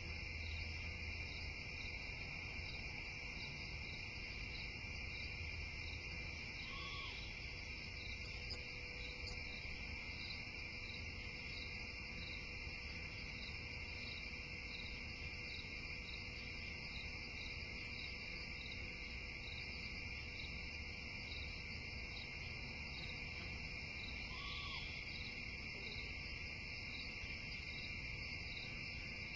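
Continuous high-pitched trilling of what sounds like insects, such as crickets or katydids, with a regularly repeated higher pulse over the steady drone. The animal making it is unidentified.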